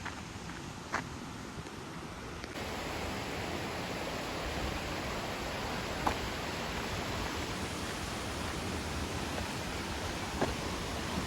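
Latourell Falls' steady rushing roar of falling water, coming in suddenly about two and a half seconds in after a quieter start with a couple of light taps.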